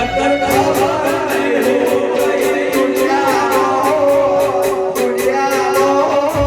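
Song playing: a voice sings over sustained instrument notes and a steady, evenly spaced high percussion beat, with the deep bass dropped out.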